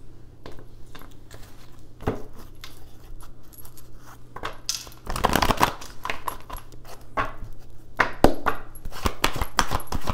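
A run of clicks, taps and short rustles from objects being handled on a tabletop, busiest about five seconds in and again near the end, over a faint steady low hum.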